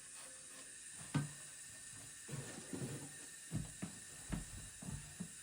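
Handling and cleaning noises: one sharp click about a second in, then a run of soft knocks and rubbing over the last few seconds.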